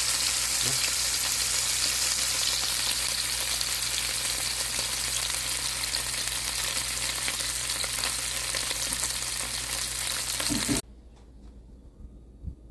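A5 wagyu searing in a hot pan, a loud, steady sizzle of fat frying that cuts off suddenly near the end.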